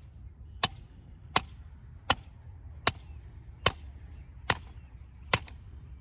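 Hammer blows driving a stake into the ground: seven sharp strikes, evenly spaced about three-quarters of a second apart.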